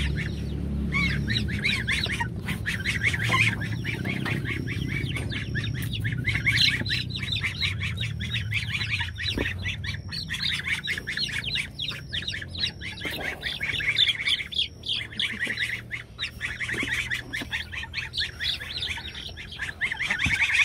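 A brood of young chicks and peachicks peeping in a continuous, many-voiced chorus of short high calls, with a low rumble underneath.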